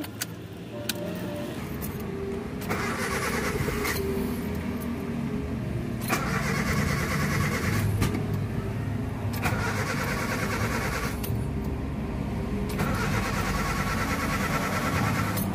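2001 Honda Dimension's engine running steadily while being tested for its high idle and stalling after a throttle-body cleaning. A higher rasping sound comes and goes four times over the engine note.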